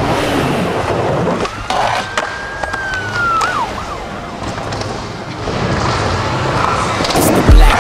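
Skateboard wheels rolling on concrete and ramps, a steady rumble and hiss with scattered clicks and clacks of boards. A thin high tone holds for about two seconds near the middle, and heavy board thumps come near the end.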